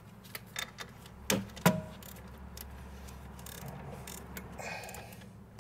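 Sharp metallic clicks and clinks of a wrench working on rear brake caliper bolts. The two loudest come close together about a second and a half in, the second with a short ring. A faint low hum runs underneath.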